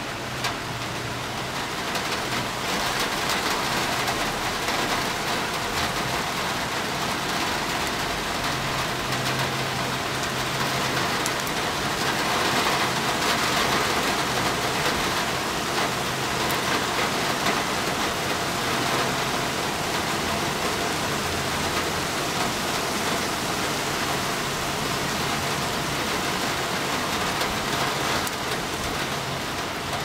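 Steady rain falling, a dense even hiss that grows a little heavier a couple of seconds in and is heaviest around the middle.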